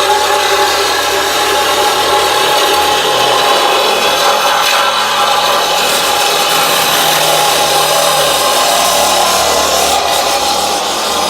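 A power saw cutting continuously through the overhanging ends of a ground-mount solar panel racking. The cut is loud and steady, with no pauses.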